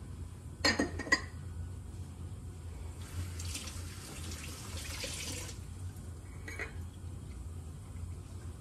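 Kitchen sink tap running for about two and a half seconds, water splashing into the sink, after two sharp knocks about a second in; one more short knock follows.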